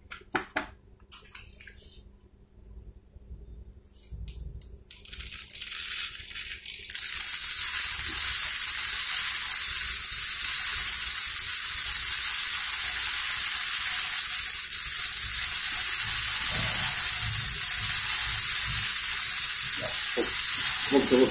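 Uncooked rice grains poured from a plastic cup into a plastic bottle: a steady hiss of grains streaming in. It begins faintly about five seconds in and is loud and even from about seven seconds on.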